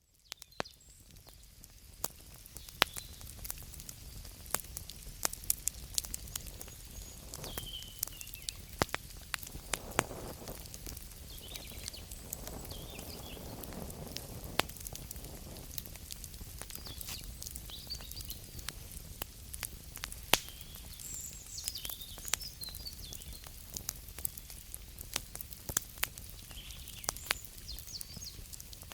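Wood fire crackling, with frequent sharp pops and snaps over a low, steady rumble. A few brief high squeaky sounds come and go. It fades in over the first couple of seconds.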